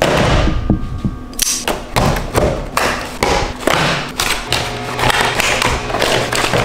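Cardboard-and-plastic blister packaging being handled and torn open by hand: repeated thumps and knocks against the table, with scraping and crackling of card and plastic.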